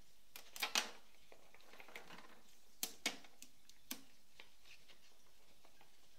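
A few short crackles and clicks of packing material being handled: blue packing tape and a small plastic shipping piece pulled off a printer. The loudest come a little under a second in and about three seconds in, with quiet between.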